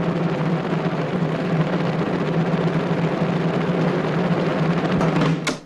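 Massed military drums beating a continuous roll, which cuts off suddenly near the end with a brief sharp sound.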